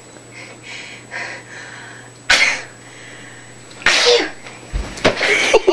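A person in a sneezing fit: breathy, hitching inhales build up, then a sudden sharp sneeze about two seconds in and a second sneeze a second and a half later.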